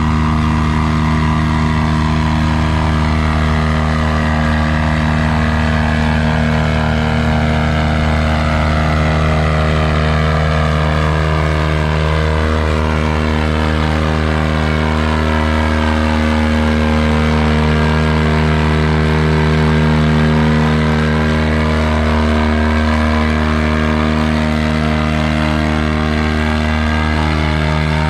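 Vintage farm tractor engine running steadily under load while pulling a weight-transfer sled, growing a little louder about two-thirds of the way through.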